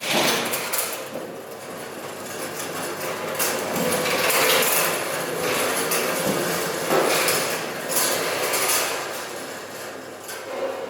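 Irregular knocking and clattering over a steady noisy rush: winery equipment at work as whole grape clusters are moved into a fermentation tank.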